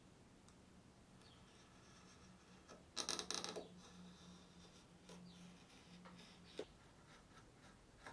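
Scalpel blade cutting and scraping along the edge of a guitar headstock veneer. It is faint for most of the time, with one short scratchy burst about three seconds in and a single light click later on.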